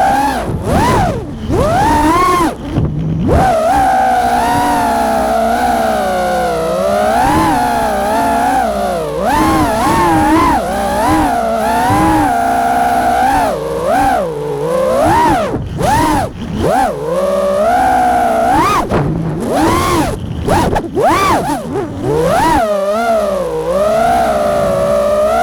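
Brushless motors of an FPV freestyle quadcopter whining in flight, the pitch sweeping up and down constantly with the throttle. There are brief dips where the throttle is cut, about 3 seconds in, around the middle, and near the end.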